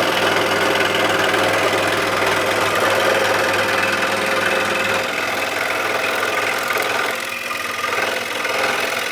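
Scroll saw running and cutting through cedar, the blade's fast reciprocating buzz steady throughout. The low hum drops away about five seconds in and the sound eases briefly around seven seconds.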